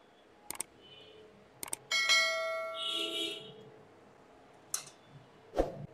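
A single bell-like chime rings out about two seconds in and fades over roughly a second. A few sharp clicks come before and after it.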